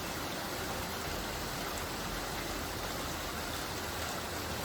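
Steady light rain falling, an even unbroken patter with no thunder.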